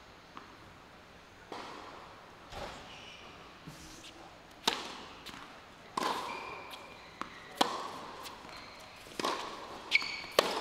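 Tennis rally on a hard court: a ball struck back and forth with racquets and bouncing, a sharp hit every second or so.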